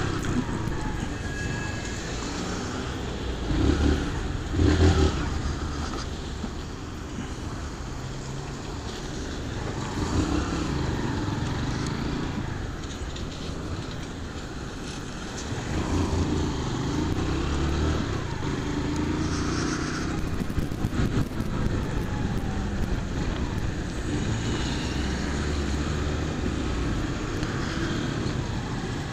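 Honda CG 150 Fan motorcycle's single-cylinder four-stroke engine running while being ridden through traffic, the revs rising and falling several times through the gears.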